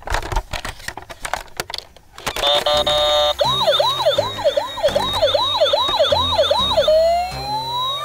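Plastic toy ambulance handled with a few clicks and knocks, then its battery-powered electronic siren comes on. A steady tone gives way to a fast yelping siren rising and falling about two and a half times a second, which changes near the end to a slow rising wail.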